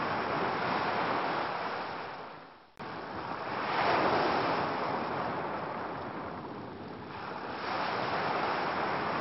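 Ocean waves washing onto a beach, swelling and falling back every few seconds, with a sudden break about three seconds in.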